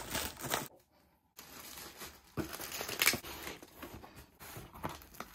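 Plastic air-cushion packaging crinkling and tearing as a parcel is unwrapped, with a few sharp tears and rips of cardboard and plastic.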